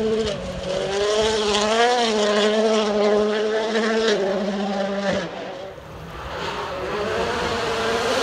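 Ford Fiesta WRC rally car's turbocharged engine at full stage pace, revs rising and falling through gear changes and lifts. About five seconds in the sound drops away, then the engine grows steadily louder as a car approaches.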